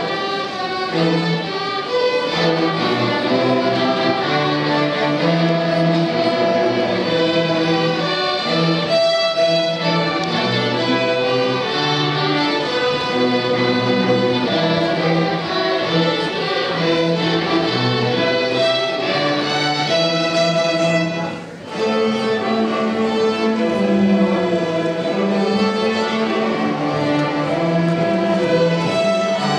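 Student string orchestra playing, violins bowing a melody together in held and moving notes, with a short break in the playing about two-thirds of the way through.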